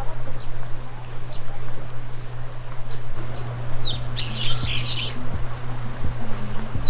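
Small birds chirping: short high chirps every second or so, with a quick, fuller burst of song about four to five seconds in, over a steady low hum.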